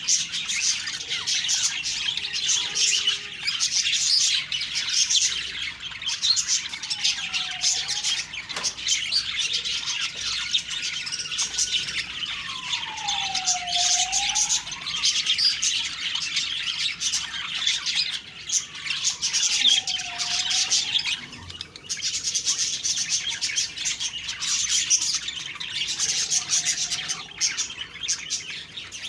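Budgerigars chattering and warbling, a dense, continuous stream of chirps. A fainter, lower tone swoops down and back up about every six seconds.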